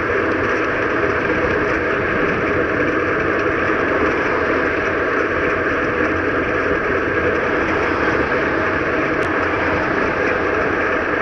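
Steady rush of wind and road noise on a bicycle-mounted camera riding at speed, with car traffic running alongside.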